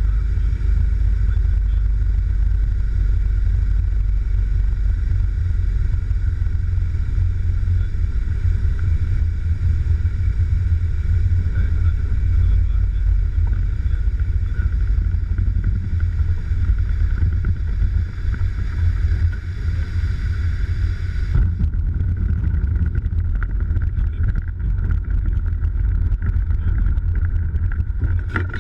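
Loud rushing airflow and low rumble inside the cockpit of a single-engine light aircraft gliding with its engine dead, a failure put down to a suspected vapour lock in the fuel lines, through the forced landing on a sandy river bank. The higher hiss cuts off suddenly about three-quarters of the way through, leaving the low rumble.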